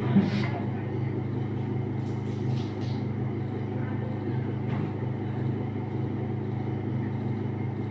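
A steady low mechanical hum, with a brief sharp knock right at the start.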